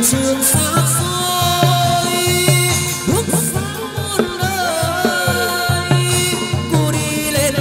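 Chầu văn ritual music from the hầu đồng ensemble: pitched instruments with sliding, gliding notes over a steady beat.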